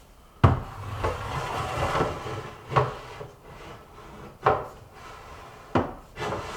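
Wooden kitchen cabinet parts being handled: four sharp wooden knocks, spread over several seconds, with scraping and rubbing of wood between them.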